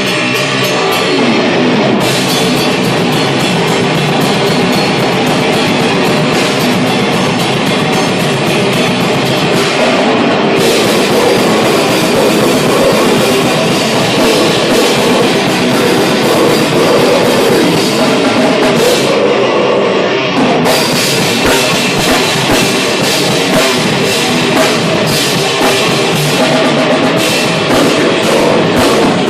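Heavy metal band playing live: electric guitars with a drum kit. The full band, cymbals included, comes in about two seconds in after a guitar lead-in, and the cymbals drop out briefly twice.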